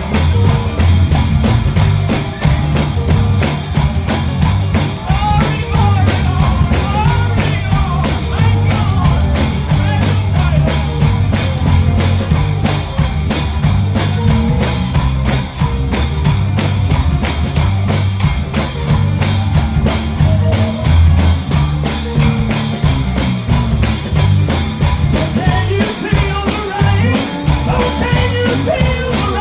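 Upbeat gospel band music with drum kit and bass keeping a steady, driving beat.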